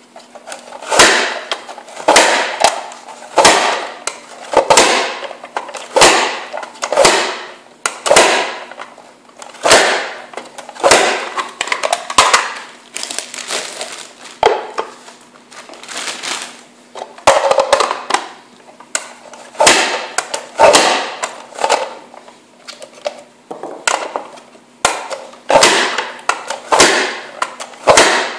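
A plastic push-through vegetable chopper pressed down again and again, its grid of blades cutting carrots into batons. Each press is a sharp clack with a short rasp after it, in an even rhythm of roughly one stroke a second.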